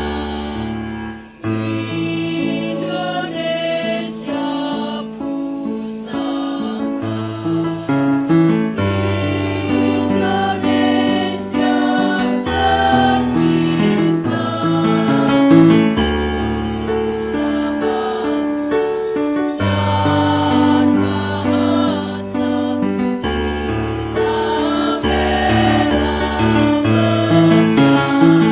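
A choir singing with keyboard accompaniment, the keyboard holding sustained bass notes under the voices.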